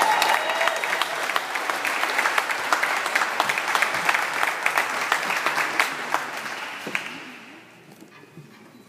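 Audience applauding, dying away about seven seconds in.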